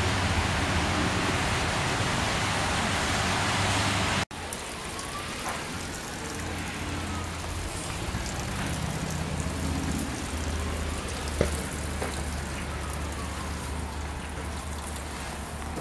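Steady hiss of a storm downpour. About four seconds in it cuts off abruptly and gives way to a quieter downpour with scattered faint drips and ticks.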